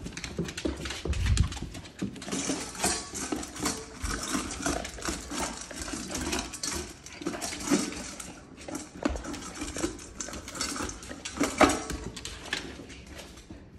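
A vizsla eating dry kibble fast from a stainless steel bowl: rapid clinking and rattling of kibble against the metal bowl, with a louder clank of the bowl near the end.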